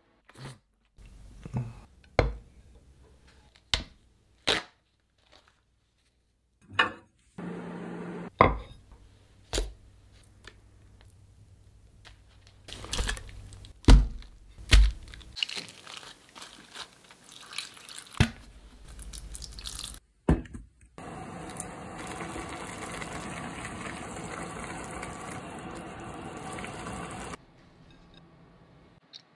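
Kitchen cooking sounds in quick succession: liquid pouring, a string of sharp knocks and crunches, then a steady hiss lasting about six seconds near the end.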